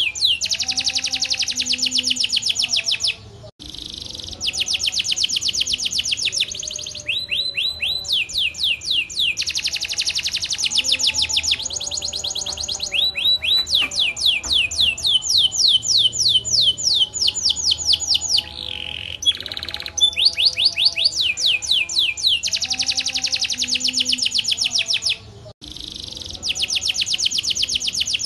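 Domestic canary singing a long song of fast rolling trills: phrases of rapidly repeated high notes lasting a few seconds each, with brief breaks about three seconds in and again near the end.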